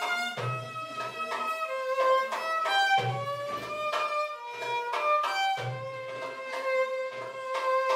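Live violin playing a slow melody of long, sustained bowed notes. Low thuds recur about every two and a half seconds beneath it.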